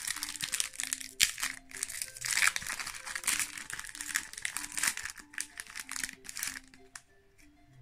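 Plastic wrapper of a trading-card booster pack crinkling as it is handled and opened, stopping about seven seconds in. Soft background music plays underneath.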